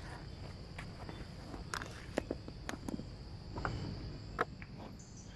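Steady high-pitched insect drone, with scattered faint crackles and ticks over a low outdoor rumble.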